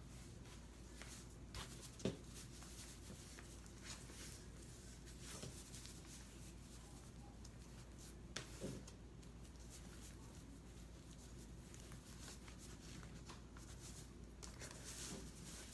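Faint rustling and scratching of cloth strips being handled and tied onto a wreath frame, with a few light knocks, the clearest about two seconds in and again past eight seconds.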